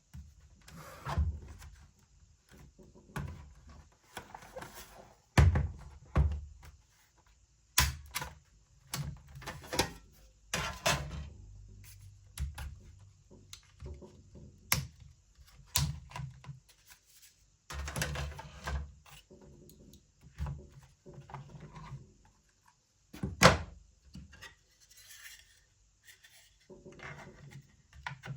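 Laptop being taken apart for an SSD swap: irregular clicks, knocks and thunks of its plastic and metal parts being handled and set down, with some rubbing and scraping. Two knocks, about 5 and 23 seconds in, are the loudest.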